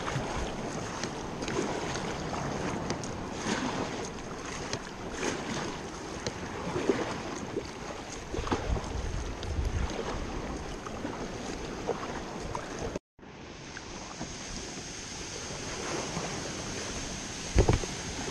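Water splashing and dripping from kayak paddle strokes, with the sea lapping around the hull and wind buffeting the microphone. The sound cuts out for an instant about two-thirds of the way through, and a few low wind thumps come near the end.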